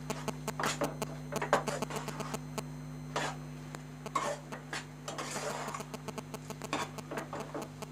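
Steel spatula clicking and scraping against a stainless steel kadai as cooked rice is stirred and mixed, with a few longer scrapes, over a steady low hum.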